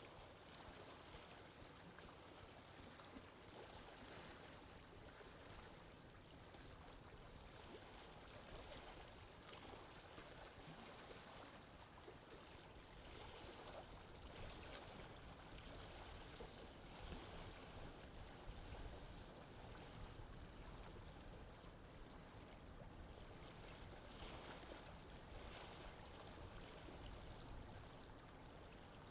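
Faint, steady lapping of lake water.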